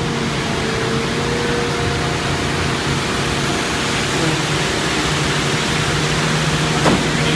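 Concrete pump running steadily, a loud even noise with a low hum under it. One sharp click comes near the end.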